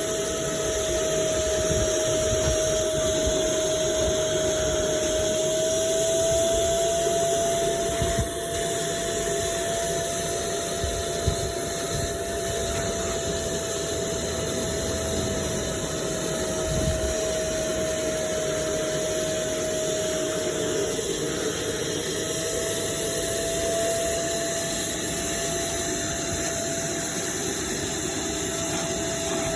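Carpet-cleaning machine's motor running steadily, a constant high whine over a rushing noise.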